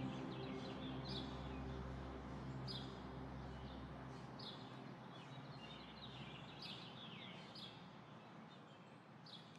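Small birds singing in short, repeated, falling chirps, one every second or so, over faint outdoor ambience. A soft, low sustained music tone fades out over the first few seconds.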